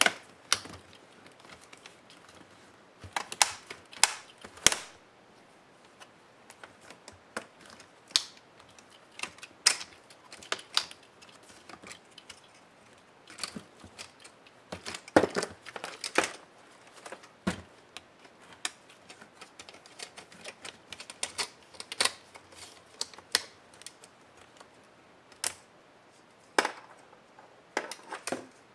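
Irregular sharp clicks and taps of a laptop's plastic and metal top case and keyboard being handled, turned over and worked on by hand.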